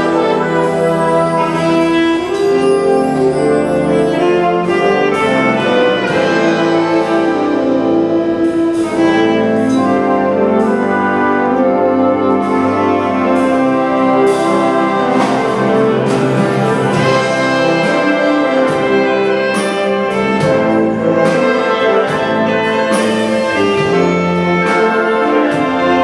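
Concert wind band playing full, sustained chords on brass and woodwinds, with percussion strokes running through it.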